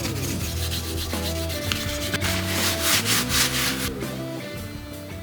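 Background music with held, gliding notes over a rhythmic scratchy, rubbing texture, fading out near the end.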